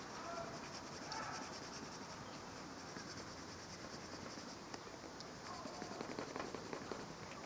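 Pencil scratching on notebook paper in quick, irregular strokes as a sketch is worked over.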